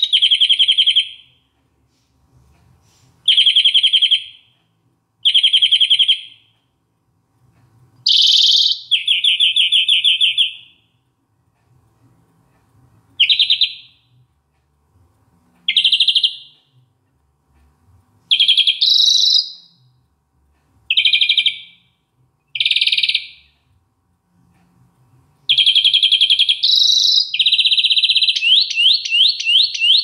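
European greenfinch singing: about ten rapid trilled phrases, each a second or two long and separated by short pauses, running into one long unbroken series of fast trills near the end.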